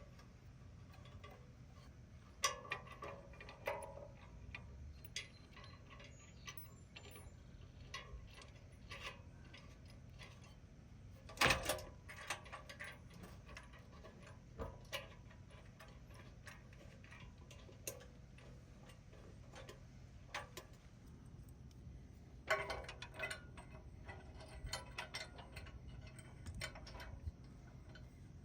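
Scattered light clicks and knocks of hand tools and parts being handled while fitting a Jeep Wrangler JK rear bumper, with one louder knock about a third of the way in and a quick run of clicks near the end.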